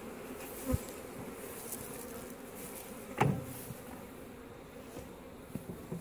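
Honeybees buzzing in a steady hum around an opened hive. There is a short thump about a second in and a louder knock about three seconds in.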